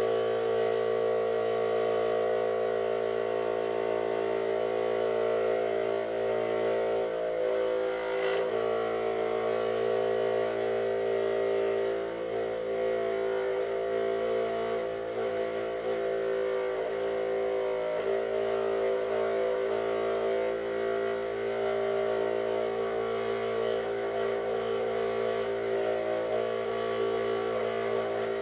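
Electric scroll saw running steadily, its motor humming at a constant pitch as the blade cuts through thin 5 mm plywood.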